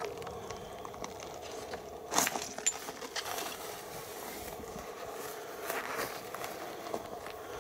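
Rustling and handling noise from a handheld camera carried through long grass, with scattered light clicks over a faint steady hum. A louder rustle comes about two seconds in.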